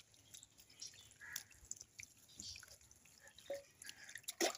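Water dripping and splashing in scattered drops off a white dog's wet coat as it is bathed with water poured from a metal bowl, with one sharper sound near the end.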